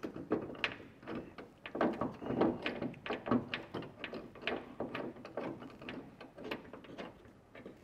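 Socket ratchet with a 7/32 Allen socket clicking in short irregular runs as a ladder-rack clamp bolt is tightened, with light metal taps between.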